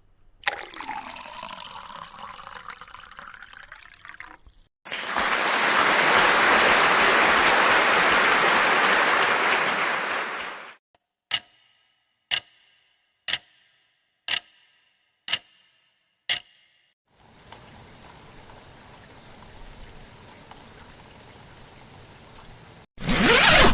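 A string of separate sound effects: a loud, steady rushing noise lasting about six seconds, then six sharp ticks about a second apart, then a faint hiss, ending in a short loud burst.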